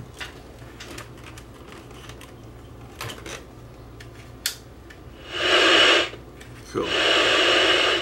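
Loud hiss of static from the speaker of a Candle JCTV0500 5-inch colour TV, in two bursts of about a second each, after a few faint handling clicks. The set is powering up again after its regulator transistor was resoldered.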